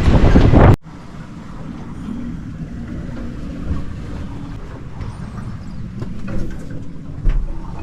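Loud wind and sea noise buffeting the microphone on a sailing yacht in heavy weather, cut off abruptly under a second in. It gives way to a quieter, steady low hum aboard the boat with a few scattered clicks and knocks, one of them louder near the end.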